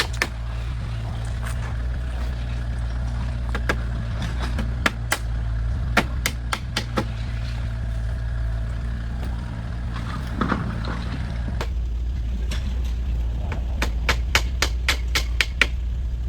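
A small engine running steadily at a low pitch, with scattered sharp clicks and knocks over it and a quick run of them near the end.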